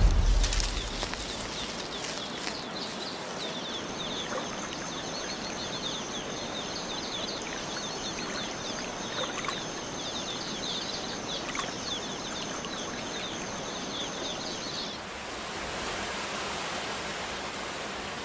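Rainforest ambience: a steady hiss with rapid, repeated high chirps and a steady high whine from small calling animals. About fifteen seconds in the chirping and whine stop, leaving a broader rushing hiss.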